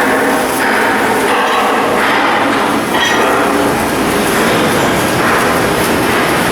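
Loud, steady industrial machinery noise of shipbuilding work, without a clear rhythm or pitch.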